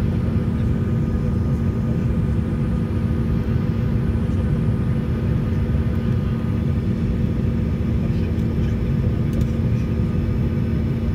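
Cabin noise inside a Sukhoi Superjet 100 airliner in flight: the steady rush of air and the sound of its two SaM146 turbofan engines, with a steady low hum running under it.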